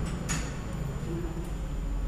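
Steady low background hum, with one light click about a third of a second in.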